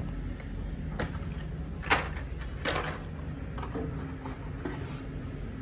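Carded Hot Wheels blister packs and cardboard box being handled: a few short, sharp crinkles and taps, the loudest about two seconds in, over a low steady hum.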